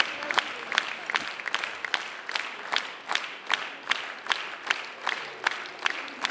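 Audience applauding, the claps falling into a steady unison rhythm of about two and a half a second.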